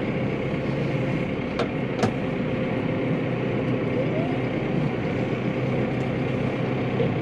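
Tractor engine running steadily under load while ploughing, heard from inside the cab, with two short clicks about a second and a half and two seconds in.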